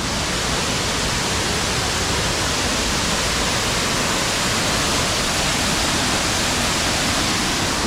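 Waterfall roaring: a loud, steady rush of falling water with no breaks.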